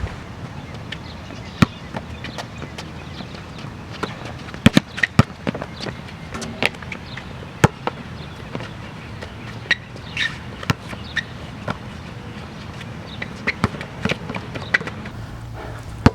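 Basketball game sounds: a ball bouncing with irregular sharp thuds, and a few short high squeaks over a steady low background.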